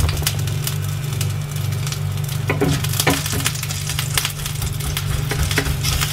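Minced fish paste sizzling as it fries in a little oil in a non-stick frying pan, with a wooden spatula scraping and knocking against the pan as it is turned. A steady low hum runs underneath.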